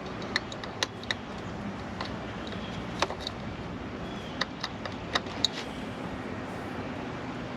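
Scattered sharp clicks and light taps, about eight of them, as hands unclip and handle an ignition coil pack and meter leads on a car engine, over a steady low background hum.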